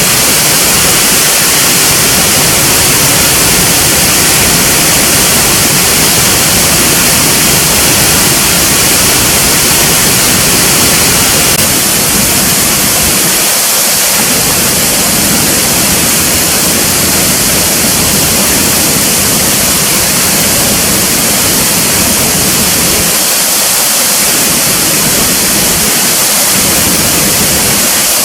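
Loud steady rush of falling water, an even hiss that holds throughout with no pauses.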